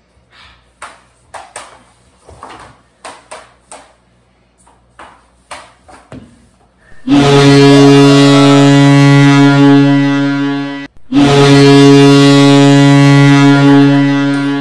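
Sticks knocking against a ball and a hard floor in a series of sharp clacks, then a hockey goal horn blows two long, steady blasts, about four and three and a half seconds, with a short break between: the signal of a goal.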